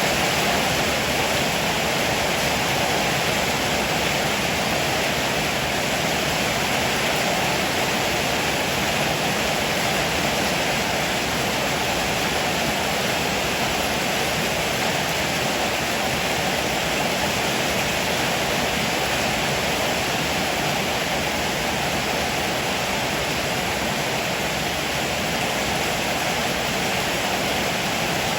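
Heavy rain falling as a steady, even downpour.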